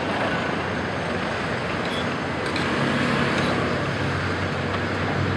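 Road traffic on the adjacent street: vehicles driving past close by, their engines and tyres making a steady noise.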